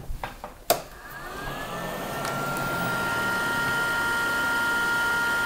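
A click as an AmigaOne XE computer's power supply is switched on, then its cooling fans spin up: a whine that rises in pitch and settles, over a whir that builds to a steady level within a couple of seconds.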